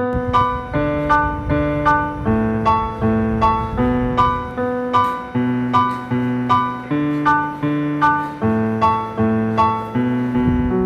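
Background music: a keyboard melody of evenly paced struck notes, about two a second, each note fading before the next.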